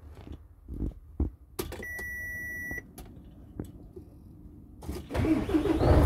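Clicks in a Mercedes-Benz Actros 2536 truck cab and a single electronic beep lasting about a second. About five seconds in, the diesel engine starts and keeps running loudly.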